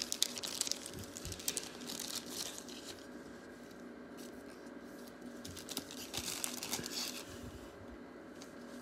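Trading cards and plastic card sleeves and toploaders being handled: crinkling plastic and light clicks of cards against each other. The sound comes in two spells, through the first few seconds and again around six to seven seconds in.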